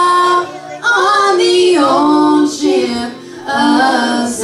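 Two women singing a gospel song together, drawing out long held notes that slide between pitches, with a few short breaths between phrases.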